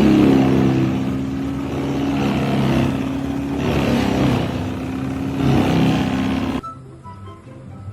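An engine running with a steady drone that wavers a little in pitch, cut off abruptly about six and a half seconds in by a much quieter sound.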